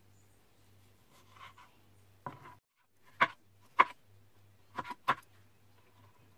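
Chef's knife chopping blanched, peeled tomato on a plastic cutting board. The blade knocks on the board about five times, sharply and irregularly, starting about two seconds in.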